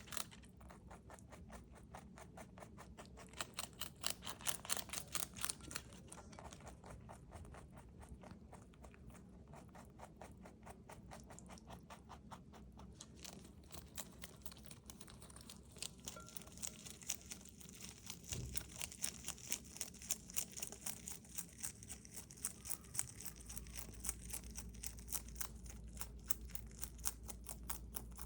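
A rabbit chewing crisp bok choy (Shanghai green): a rapid, even run of small crunches, several a second.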